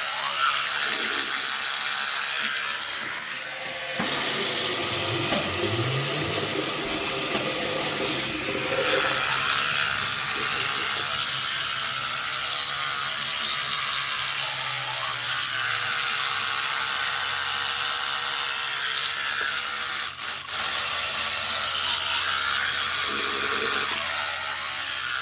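Electric toothbrush running continuously with a steady buzz. Its sound grows louder and changes about four seconds in, and it dips briefly about twenty seconds in.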